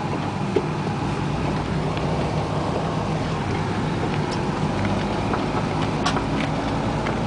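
1988 Isuzu Trooper's engine running steadily, heard from inside the cab as an even low hum under a constant hiss of rain, with a few faint ticks.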